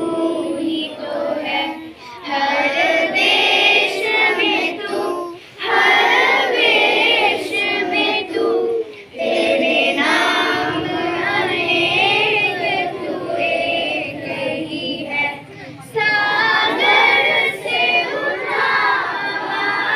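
A group of children singing a song together, line after line, with short breaks between phrases.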